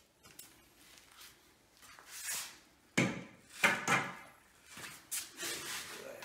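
A few short scrapes and knocks of tools being handled on a porcelain tile floor, loudest about three to four seconds in.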